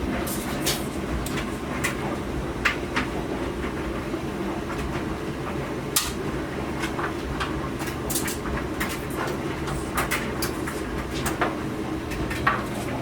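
Whirlpool Duet Sport clothes dryer running with a load of clothes tumbling: a steady drum and motor hum on its new drum support rollers, idler pulley and belt, with irregular clicks and knocks as things in the load hit the drum.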